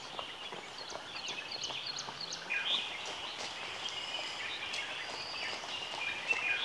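Birds calling: many short, high chirps and whistles, including a quick run of rising chirps and one falling whistle, over a faint even background hiss.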